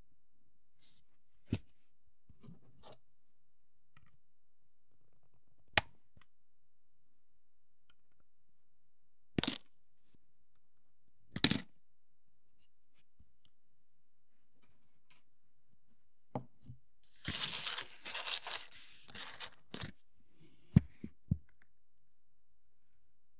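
Scattered sharp clicks and snaps from handling a plastic miniature kit and hobby tools, with about three seconds of rustling in the second half.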